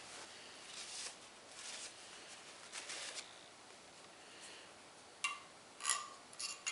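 Metal parts being handled on a workbench during an engine assembly: soft scraping and shuffling, then three sharp metallic clinks with a brief ring in the last couple of seconds.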